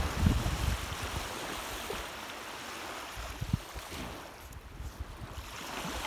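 Wind buffeting the microphone in low rumbling gusts that ease after about a second, over a steady rushing hiss of outdoor wind.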